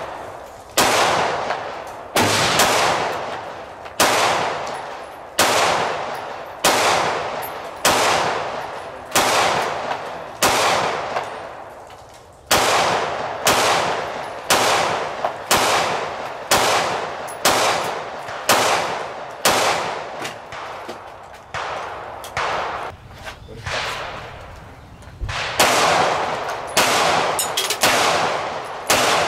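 Gunfire at a shooting range: a run of single gunshots roughly once a second, some close together, each cracking sharply and then fading in a short echo. The shots are quieter for a few seconds about twenty seconds in, then grow loud again.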